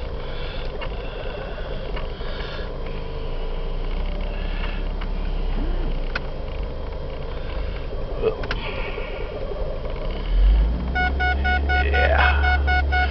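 Ford Focus four-cylinder engine idling with the air-conditioning blower running, heard from inside the car, with a few light clicks. Near the end a rapid series of electronic beeps starts up.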